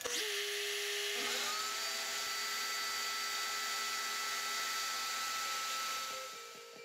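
Makita compact router on a CNC machine switched on and spinning up, its pitch rising for about a second and a half, then running at a steady high whine that fades out near the end.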